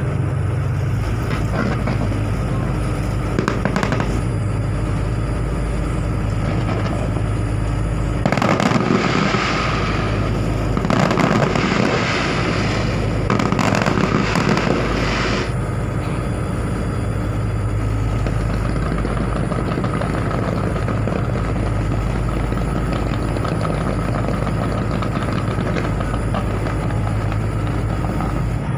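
Fireworks going off in the distance, thickest in a run of rapid bursts and crackle from about a third of the way in to just past the middle, over a steady low hum.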